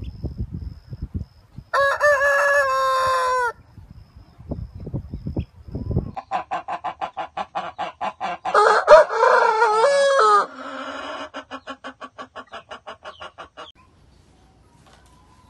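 Roosters crowing: two loud crows, one about two seconds in and one about nine seconds in. Between and after them come runs of rapid, evenly pulsed clucking calls.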